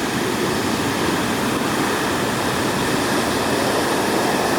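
Heavy ocean surf: a steady roar of large waves breaking and whitewater rushing.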